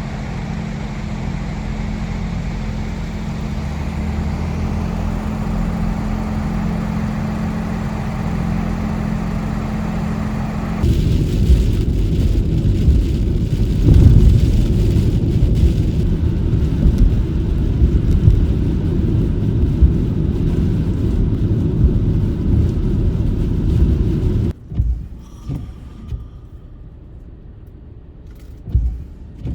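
Car road noise: a steady low hum at first, then about eleven seconds in a louder, rougher rumble with irregular knocks. This cuts off abruptly to a quieter stretch with a few scattered thumps near the end.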